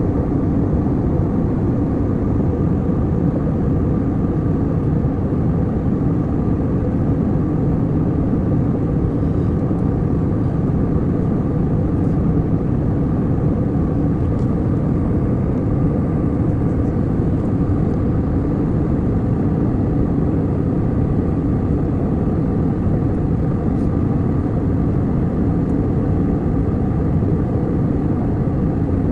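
Airliner cabin noise in flight: the engines and rushing air make a steady, even, low-pitched drone.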